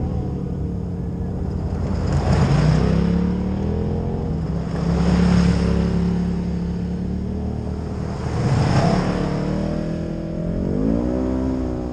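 Engines of side-by-side UTVs running as a line of them drives by on a gravel track, with a swell of tyre and gravel noise about every three seconds as each one passes. Near the end one engine revs up and back down.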